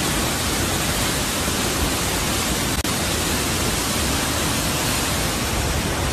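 Muddy flash-flood water pouring over a rock ledge as a waterfall: a steady rushing noise that cuts out for an instant about three seconds in.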